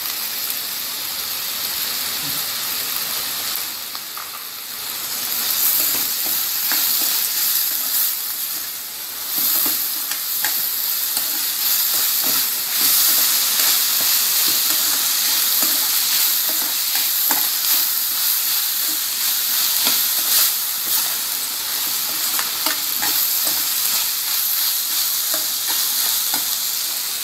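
Diced capsicum, tomato and onion sizzling in hot oil in a kadai as a steel ladle stirs and tosses them, its scrapes and taps against the pan ticking through the steady frying hiss.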